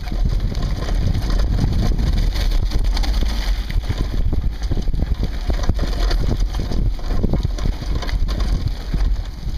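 Sport-On Explorer II all-terrain handbike rolling over a dirt trail: tyres crunching over dirt and stones, the bike rattling and knocking irregularly over bumps, with wind buffeting the microphone.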